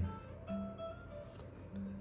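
Soft background music with a few held plucked-guitar notes.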